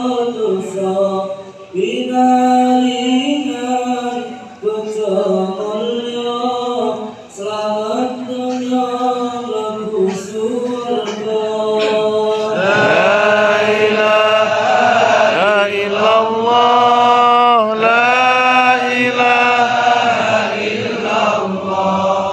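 Dzikir chanted by a gathering of men's voices. From about halfway a louder voice leads with long drawn-out phrases that slide up and down in pitch.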